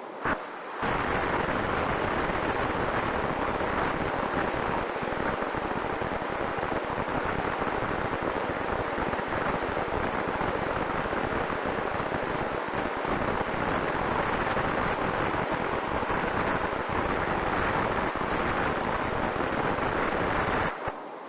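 Loud, steady rush of wind noise on a camera microphone carried on a model plane in flight, with a faint steady tone beneath it. It starts abruptly about a second in and cuts off abruptly near the end.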